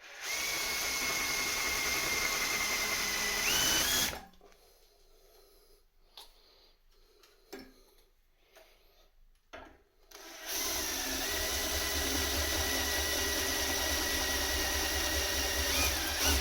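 Electric drill with a chunky bit cutting the heads off the rivets of an aluminium pedal cover plate, run at slow speed: two runs of a steady whine, the first about four seconds long, the second starting about ten seconds in. The pitch steps up near the end of each run. Between them, a few light knocks.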